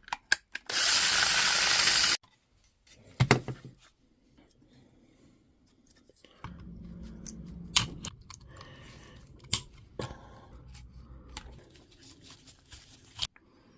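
Quick-cut workbench sounds of a Milwaukee M18 battery pack being taken apart: a power tool runs in one loud, short burst near the start. Then come scattered clicks, taps and knocks of the plastic case and parts being handled, with a low steady hum for a second or two in the middle.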